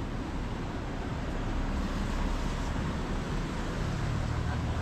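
Steady low outdoor background rumble with no clear single source; a faint low engine-like hum comes in near the end.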